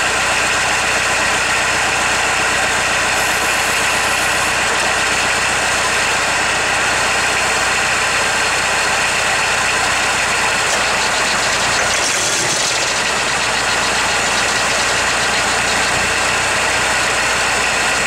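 Ford Transit van's diesel engine running at a steady idle after a hard cold start.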